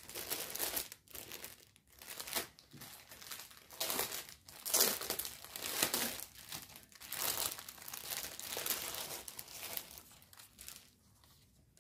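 Clear plastic packaging crinkling in irregular bursts as it is handled and opened.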